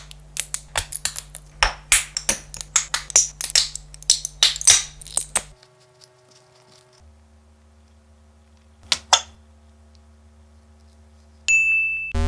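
3D printer at work: a rapid, irregular run of sharp clicks and ticks over a steady motor hum, then a quieter stretch of steady hum with a double click, and a short high beep near the end.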